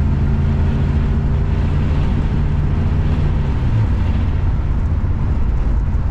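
Car driving, a steady low engine drone with road noise.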